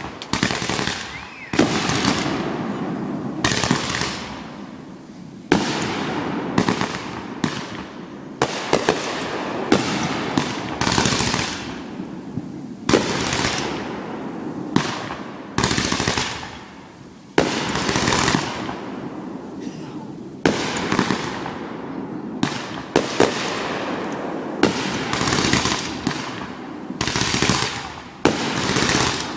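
Aerial fireworks going off in rapid succession: sharp bangs one every second or so, each trailing into a crackle that dies away, with no pause between them.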